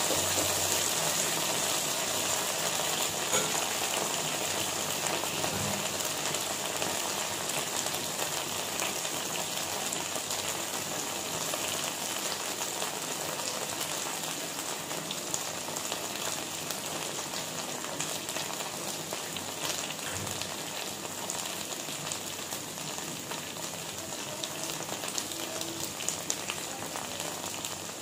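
Cut okra frying in hot oil in a steel wok on high flame: a steady sizzle with fine crackling that slowly grows quieter.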